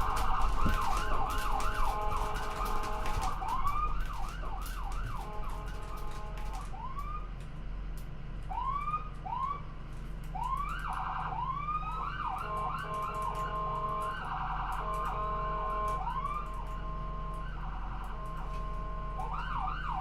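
Ambulance sirens sounding: repeated rising sweeps in pitch, fast in places like a yelp and slower like a wail, broken by short stretches of a steady electronic horn tone. Loudest at the start, then a little quieter.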